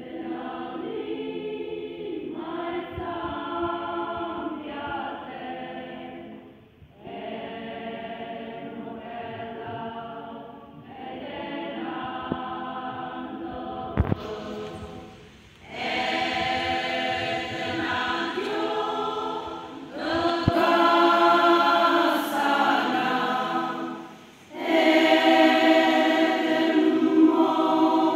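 A women's choir singing together, phrase by phrase with short breaks between phrases, growing louder about halfway through.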